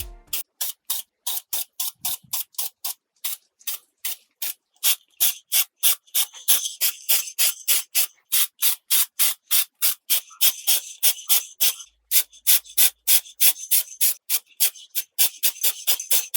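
Fast, even back-and-forth rubbing strokes by hand on a small scale-model part, about four a second, each stroke a short hiss; the strokes grow louder about five seconds in.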